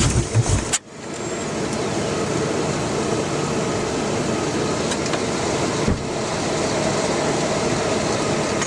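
Starter cranking the 2001 Chevy Blazer's 4.3 Vortec V6 in a rhythmic chug that cuts off under a second in without the engine catching: a crank-but-no-start, which the owner suspects is a distributor timing problem. A steady hiss follows.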